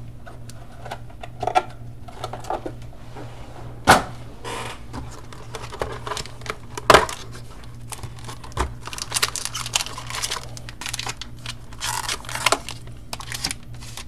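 Hands opening a Panini Spectra football card box and handling its wrapped card packs: two sharp clicks about four and seven seconds in, then a run of short rustles and taps near the end, over a steady low hum.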